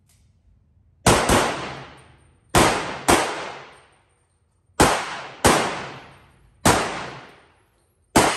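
Semi-automatic pistol fired about eight times, mostly in quick pairs, with each shot ringing on for about a second off the walls of the indoor range.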